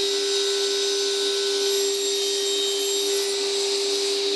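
Sliding table saw running with a steady whine as a small plywood piece is pushed by hand across the spinning blade, cutting a shallow notch.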